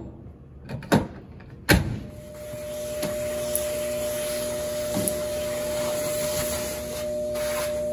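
A few sharp knocks, then about two seconds in a shop vacuum starts and runs steadily with a constant hum over its rushing noise, with a couple of faint ticks as it picks up debris.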